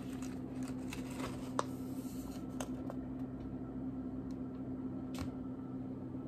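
Quiet handling of a picture book held up and turned toward the camera: a few faint paper rustles and light ticks over a steady low hum.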